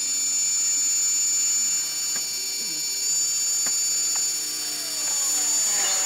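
Japanese railway level-crossing alarm ringing without pause while trains keep coming. A few light clicks, and from about five seconds in a falling whine joins as a train approaches.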